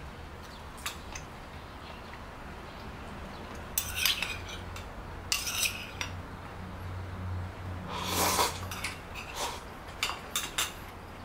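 Metal chopsticks and a spoon clinking and scraping against a ceramic bowl and a pot as food is served and eaten: scattered light clicks and a few short scrapes, over a low steady hum.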